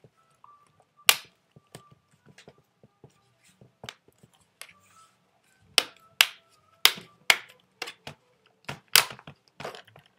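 Plastic screen bezel of an HP Chromebook 11 G4 being snapped back onto the display lid: a series of sharp plastic clicks as its clips catch, one loud click about a second in and a quick run of them between about six and nine seconds in.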